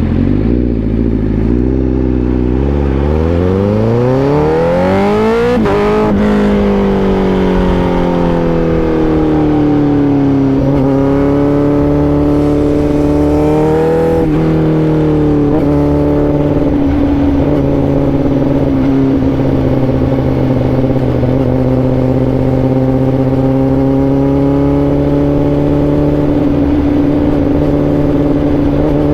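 Honda CBR1000RR-R SP's inline-four engine accelerating, its pitch climbing for about six seconds before dropping sharply at a gear change. The pitch then sinks as the throttle eases, steps a few more times, and settles into a steady cruise for the rest.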